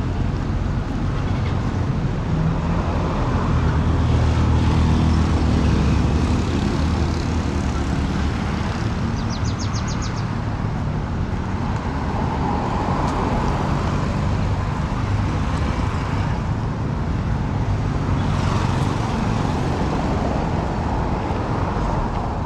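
City street traffic: engines running steadily, loudest between about four and seven seconds in as a vehicle passes close. A brief quick series of high clicks comes about ten seconds in.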